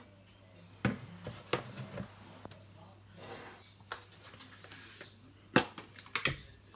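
Plastic bowls and containers handled on a kitchen counter: a string of short knocks and clacks as a large mixing bowl is set down and a small plastic tub is picked up, the two loudest knocks near the end.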